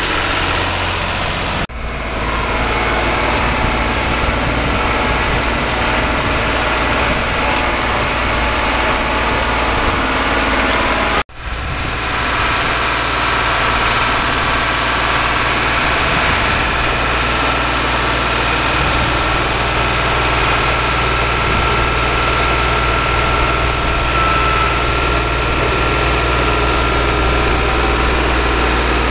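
Renault 110-14 tractor's diesel engine running steadily under load while pulling a plough through a field. The sound cuts out sharply for a moment twice, about two seconds in and again about eleven seconds in.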